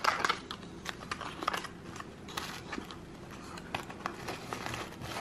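Small cardboard box being opened by hand, its bottom flaps pried up and folded back: scattered light clicks and taps with a little rustling.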